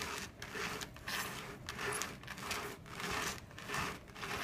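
Two plastic tubs of sand slid quickly back and forth across a tabletop, making a rhythmic scraping and rubbing of about two strokes a second as they shake a model bridge in a simulated earthquake test.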